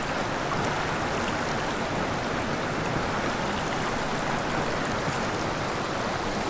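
Small mountain creek's water rushing over rocks, a steady even rush.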